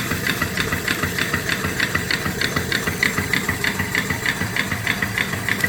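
Steam engine with a 3-inch bore and 4-inch stroke running steadily under steam, a quick even chuffing beat over a constant steam hiss.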